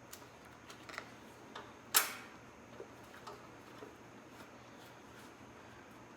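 Scattered small clicks and taps as turn-signal wires and their plug connectors are handled and pushed through a motorcycle's rear fender, with one sharper click about two seconds in.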